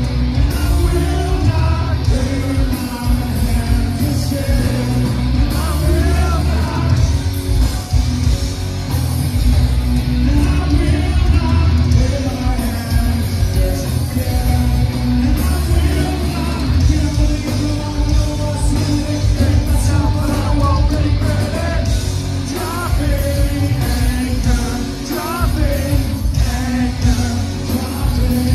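Live rock band playing loud, with electric guitars, bass, drums and a lead singer, heard from within the crowd.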